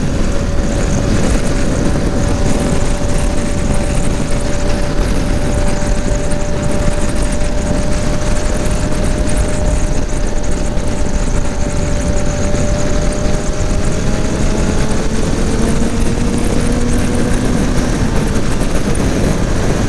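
BMW motorcycle at highway speed, about 120 km/h: heavy wind rushing over the rider's helmet microphone, with the engine running steadily underneath, its note drifting slightly in pitch.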